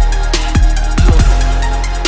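Background music with a deep bass line and a steady drum beat.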